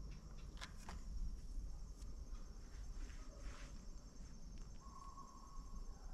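Insects chirping in a steady, fast-pulsing high drone over a low rumble, with a few sharp clicks about a second in and a short faint tone about five seconds in.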